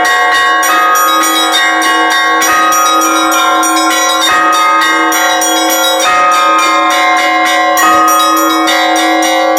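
Russian Orthodox church bells rung together by a bell-ringer: rapid, rhythmic strikes of the smaller bells over the sustained ringing of a larger bell, many tones overlapping.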